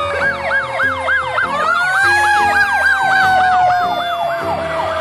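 Fire truck sirens: one yelping in fast up-and-down sweeps, about four a second, over another wailing siren that rises about a second and a half in and then slowly falls.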